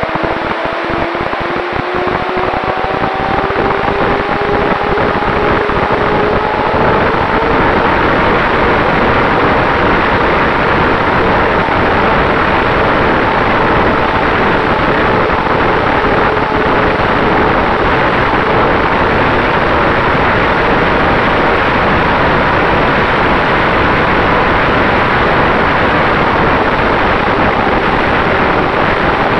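Finwing Traveler RC plane in flight, recorded on board: the electric motor and propeller whine through loud, steady wind rush on the microphone. The whine rises slightly in pitch over the first several seconds, then holds steady.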